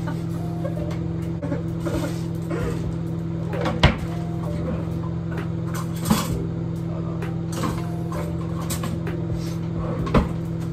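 Metal beaters being pushed and clicked into a hand mixer: a few sharp clicks and knocks, about four seconds in, about six seconds in and again near the end, over a steady low hum.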